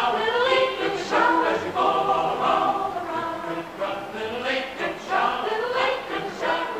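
Choral music: a choir of voices singing sustained, shifting notes.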